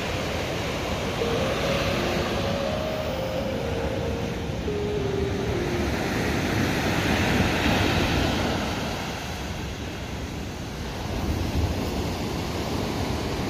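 Sea surf washing up on the beach, swelling and easing, with wind rumbling on the microphone.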